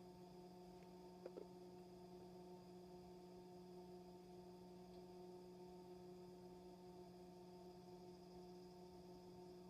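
Near silence with a faint, steady hum, and one small click about a second in.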